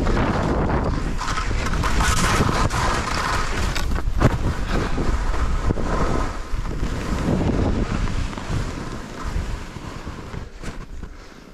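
Wind buffeting the microphone of a skier's camera at speed, over the hiss and scrape of skis on snow, easing off in the last few seconds.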